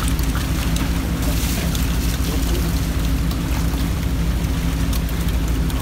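Fishing boat's engine running steadily, a constant low hum, with scattered light clicks and knocks over it.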